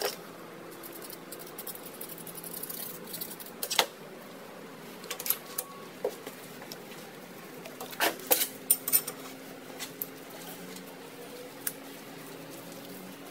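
Scattered light metallic clicks and taps of steel hydraulic hose fittings being handled, set in a bench vise and fitted with a wrench, with a short cluster of clinks about eight seconds in, over a faint steady hum.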